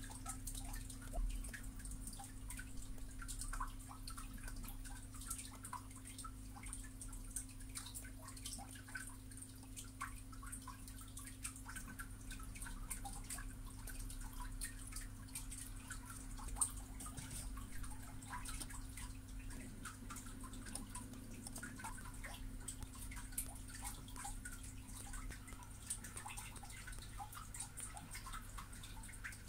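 Faint, irregular clicking and ticking of a computer mouse's buttons and scroll wheel as the mouse software is worked, over a steady low electrical hum.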